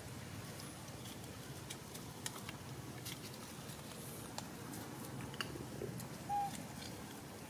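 Scattered light crackles and rustles of dry leaves and plant stems as a baby macaque scrambles and grabs at them, with one short high squeak about six seconds in.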